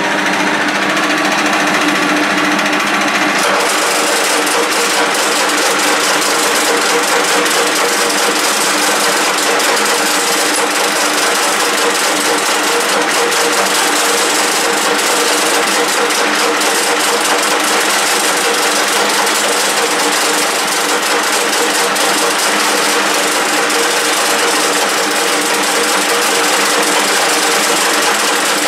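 1K62 geared-head lathe running steadily with an even gearbox whine; a finer, rapid rattle joins about three seconds in.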